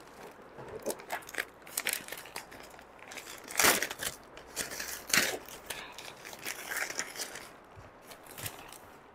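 Packaging crinkling and rustling in irregular handling noises as a kitchen mat is unwrapped, with a couple of louder rustles partway through.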